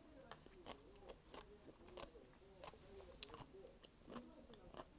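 Faint close-up eating sounds of malatang: chewing and biting with wet mouth sounds, broken by irregular short clicks.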